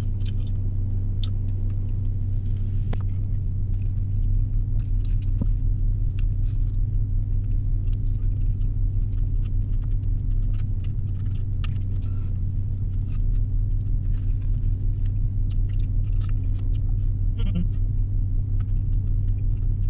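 Steady low drone of a car's engine idling, heard inside the cabin, with faint clicks and smacks of a man chewing a burger scattered through it.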